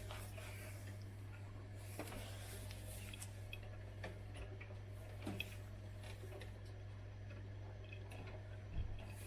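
Zanussi IZ 16 S front-loading washing machine partway through its rinse: a faint steady low hum with scattered light ticks and water sounds, and a small knock about five seconds in and another near the end.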